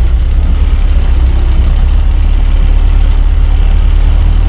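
Ford Model T's four-cylinder engine running steadily as the open car drives along, with a strong low rumble.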